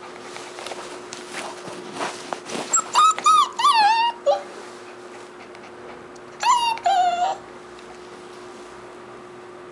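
Beagle puppy giving short, high-pitched whining yelps that fall in pitch: a quick run of several about three seconds in, then two more a few seconds later. Some scuffling rustle comes before them.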